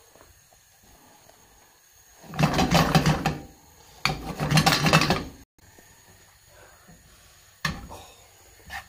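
A frying pan scraping and rattling in two bursts of about a second each as the dry spice rub is toasted in it, then a single sharp knock later on.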